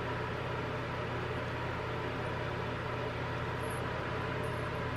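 Steady low hum with a hiss over it, an unchanging background noise, with a few faint light ticks near the end.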